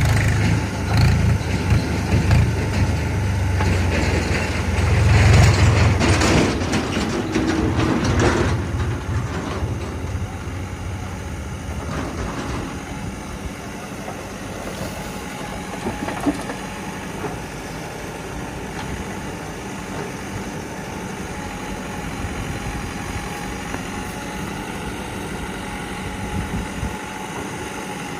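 Heavy diesel engine working hard for about the first eight seconds, then dropping to a steady idle.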